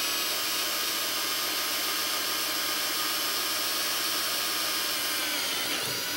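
Cordless drill running steadily at high speed, its bit boring into a metal bumper through the mounting hole of an LED light's casing. The motor's whine dips slightly in pitch near the end.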